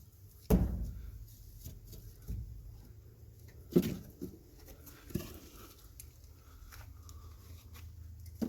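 A series of dull knocks and bumps over a low steady hum, the loudest about half a second in and another just before four seconds in, with several lighter ones between.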